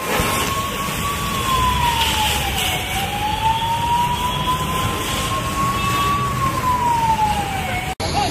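Emergency vehicle siren sounding a slow wail that rises and falls in pitch, each sweep taking a few seconds, over steady background noise.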